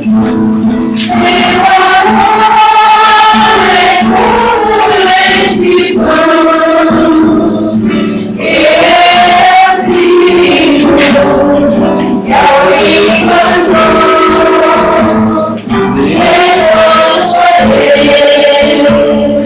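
Men and women singing a church hymn together over a steady held low accompaniment note.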